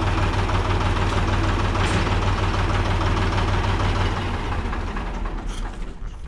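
Ford 3000 tractor's three-cylinder diesel engine idling steadily, then being shut off about four and a half seconds in, running down and quietening near the end.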